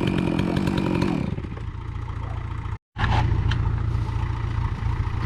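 A chainsaw running at high revs, which drop off about a second in. Then a small engine idles steadily, with a few light clatters.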